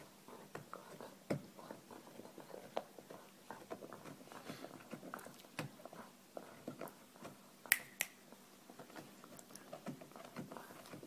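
Scattered soft clicks and knocks of a baby's fingers and a golden retriever's teeth working at a hard chew bone held in the dog's mouth, with two sharper clicks close together about eight seconds in.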